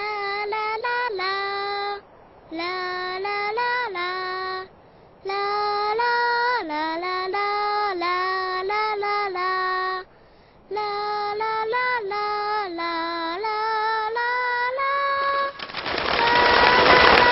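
A young girl's voice singing a melody alone, in short phrases with brief pauses for breath. Near the end a rushing noise swells up under the singing.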